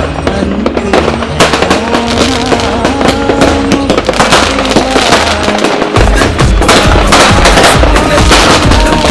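Firecrackers going off in dense, rapid crackling volleys over loud music with a melody. A heavy bass beat comes in about six seconds in.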